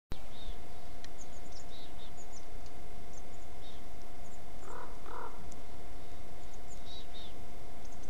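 Common raven giving two short low calls about halfway through, over a trail camera's steady microphone hiss and faint electronic whine. Small birds chirp faintly and repeatedly, high-pitched, throughout.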